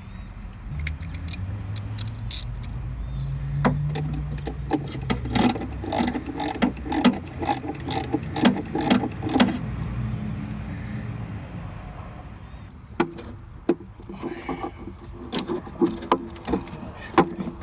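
Hand ratchet being worked, a run of sharp clicks about two a second through the middle, with scattered metal knocks later. A low steady rumble runs underneath for the first ten seconds or so and fades out.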